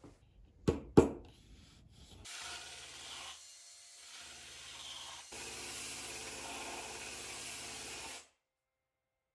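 Two sharp knocks in the first second, then a cordless rotary tool with a small sanding disc runs against the cured fiberglass of a surfboard rail: a steady motor hum under a sanding hiss. It eases off briefly about a third of the way in, comes back stronger, then cuts off suddenly near the end.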